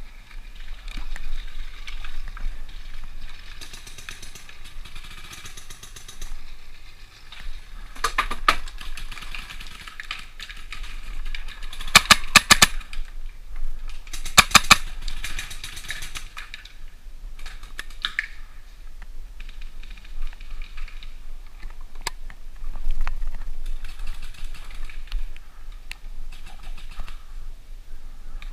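Paintball markers firing in quick strings of shots. There are three bursts, about eight, twelve and fourteen seconds in, and the middle one is the loudest.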